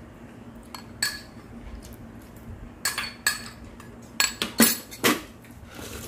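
Stainless steel spoon clinking against an earthenware ttukbaegi pot and a ceramic rice bowl while scooping soup and rice: a series of sharp clinks, the loudest bunched between about four and five seconds in.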